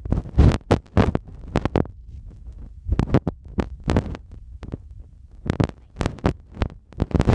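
Handling noise on a handheld camera's microphone: a run of irregular thumps and rubs, several a second, some of them loud.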